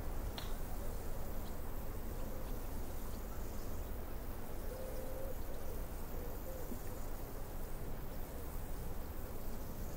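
Steady wash of breaking ocean surf, with a faint wavering tone that comes and goes through the middle.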